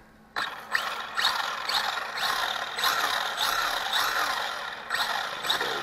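Electric motor and drivetrain of a Tamiya XV-02 four-wheel-drive RC rally car, throttled in quick blips so that its whine sweeps up and down about twice a second. It starts abruptly about a third of a second in.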